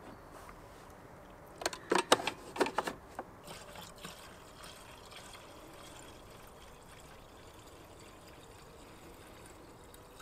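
Petrol poured from a plastic canister into a lawn mower's fuel tank: a faint, steady trickle. About two seconds in comes a short cluster of sharp clicks and knocks as the filler and canister are handled.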